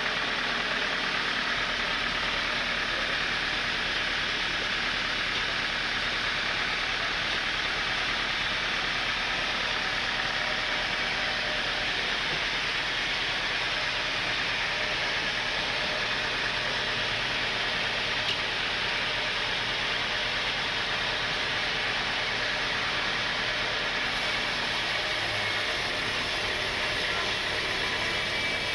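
Sawmill machinery running steadily: one constant, even noise with no breaks.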